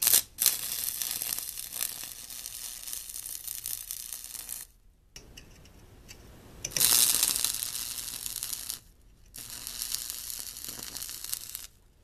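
Stick (arc) welding: the electrode's arc crackling and sizzling in three stretches of a few seconds each, each cutting off suddenly, the middle one the loudest.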